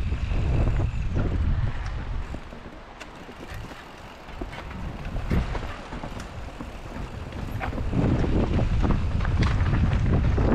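Wind buffeting the action camera's microphone during a mountain-bike descent, with short knocks and clatter from the Rocky Mountain Slayer and its tyres on the trail. The wind rumble dies down through the middle and comes back strong about three-quarters of the way in.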